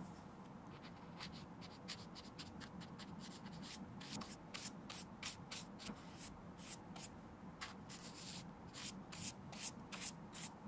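Flat paintbrush stroking red leather pigment onto the leather toe cap of an Air Jordan 1. It makes a run of short brushing swishes, a few a second, starting about a second in.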